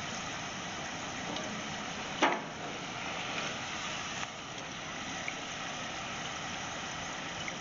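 French fries deep-frying in hot oil in a cast-iron pot, a steady bubbling sizzle, as a wire skimmer lifts the finished fries out. One short metal clink a little after two seconds in.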